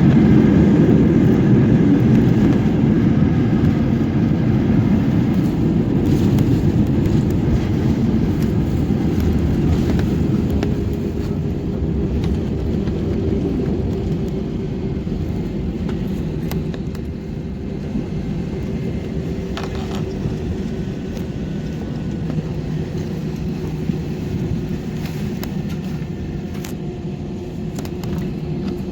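Airliner cabin noise: a loud, dense rumble that gradually fades, with a steady engine hum underneath, as the plane slows on the runway after landing.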